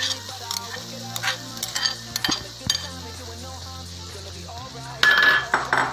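Perforated metal spoon scraping and clinking against a metal wok as cooked rice is tipped in and stirred through, in short strokes. The scraping is loudest about five seconds in.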